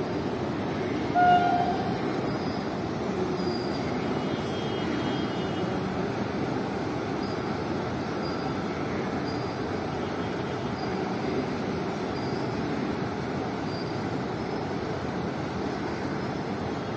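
Indian Railways LHB passenger coaches passing at speed: a steady rumble of wheels on the rails. A brief, loud high tone sounds about a second in.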